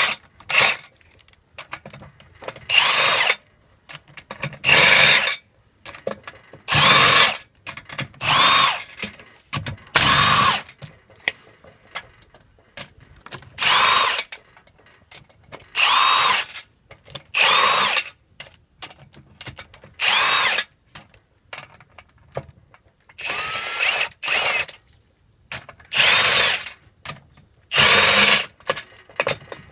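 Milwaukee FUEL brushless cordless driver spinning out the M8 bolts of a transmission case one after another: about a dozen short whirring bursts, each rising in pitch as the motor spins up, with brief pauses and small clicks in between.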